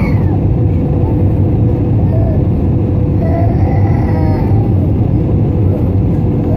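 Jet airliner cabin noise from a window seat over the wing: a loud, steady engine rumble with a steady hum above it. A faint voice or child's cry comes through a couple of times.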